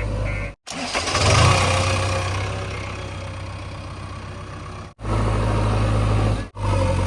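Heavy diesel engine running, in short clips joined by abrupt cuts; about a second in it revs up loudly, then slowly settles. A rapid repeating beep sounds at the start, until the first cut.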